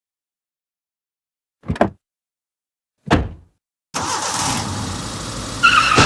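Car sound effects: a car door shuts twice, about a second and a half apart, then a car engine suddenly starts and runs, with a short squeal near the end.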